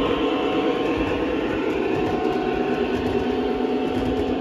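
Lionel O gauge model train running past on three-rail track: a steady rumble of wheels and motors, with the Lionel F40PH diesel locomotive's onboard engine sound effect held at a steady pitch.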